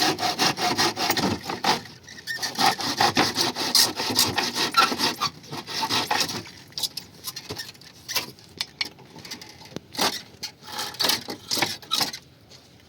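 Wood being cut with a hand saw in quick, rhythmic strokes, with a short pause near two seconds; after about six and a half seconds the strokes become sparse and scattered.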